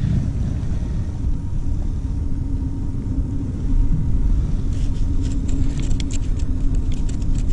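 Steady low rumble of wind and clothing noise on a chest-mounted camera's microphone. From about two thirds of the way in, a quick run of crunching clicks from boots walking on snow-covered ice.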